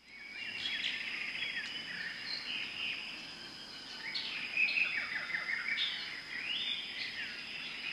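Tropical forest ambience, fading in at the start: many birds chirping and calling with quick up-and-down notes, over a steady high-pitched insect drone.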